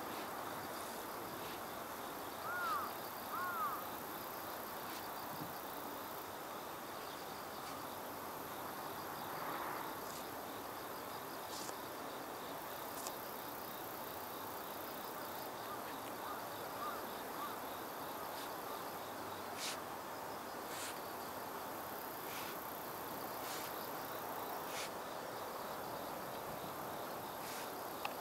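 Insects chirping steadily over an even background hiss. Two short arching bird chirps come about three seconds in, and faint scattered clicks follow later.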